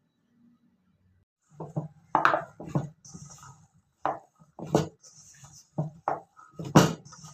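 Irregular knocks and clatter of kitchen utensils on a hard surface, beginning about a second and a half in, with short scraping hisses between strikes and the loudest knock near the end.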